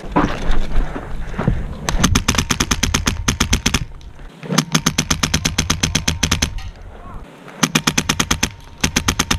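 Airsoft rifle firing rapid full-auto bursts: three strings of shots about two seconds each, the last one shorter and less dense.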